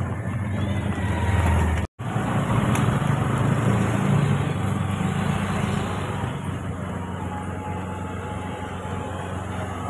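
Motor scooter engines running as scooters pass close along the street, loudest in the first half, then fading away. The sound drops out for a moment about two seconds in.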